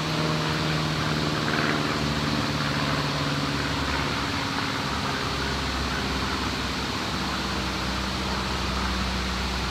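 Steady rush of river water, with a low steady hum in the first few seconds that fades out.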